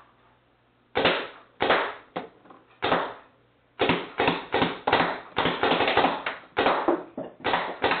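Proto Matrix PM8 electropneumatic paintball marker firing in a small room, loud, with a short echo after each shot. First four single shots about half a second to a second apart, then, from about four seconds in, a faster string of shots at around three a second.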